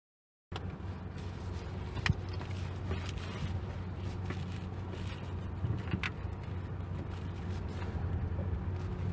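Cabin sound of a Mitsubishi Triton pickup's 2.4-litre turbodiesel four-cylinder and tyres on a rough dirt track: a steady low hum with a few sharp knocks, after half a second of silence at the start.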